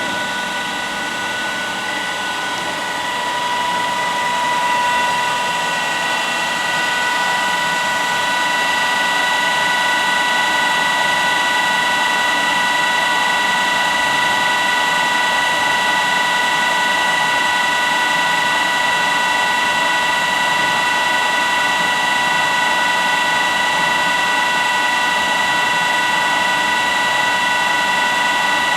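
Haas EC-1600 horizontal machining center running a program: a steady mechanical hum with several high whining tones, growing louder a few seconds in and then holding steady.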